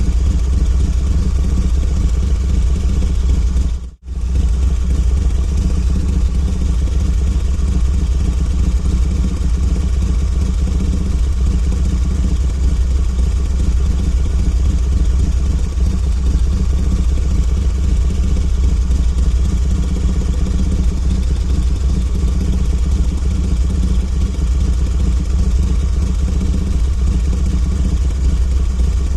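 Harley-Davidson motorcycle's V-twin engine idling steadily. The sound cuts out briefly about four seconds in, then carries on.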